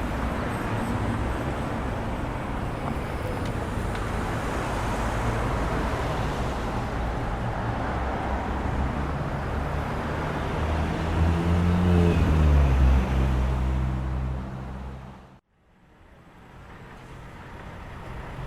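City street traffic ambience: steady road noise from passing cars. About two-thirds of the way through, a vehicle engine grows loud close by and shifts in pitch. Then the sound cuts off abruptly and a new, quieter ambience fades in.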